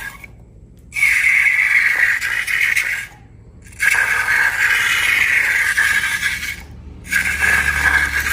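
Loud scraping and rattling in three stretches of about two to three seconds each, each one stopping abruptly.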